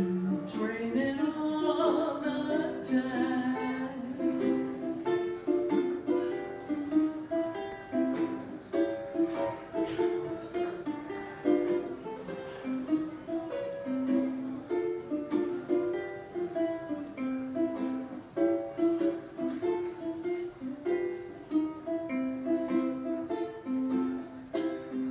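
Ukulele played live, strummed chords accompanying a voice singing a melody of held notes.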